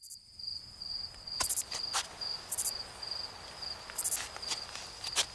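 Insect chorus: a steady, slightly pulsing high cricket trill, with a second, higher insect rasping in short bursts about every second or so. A few sharp snaps or clicks sound over it.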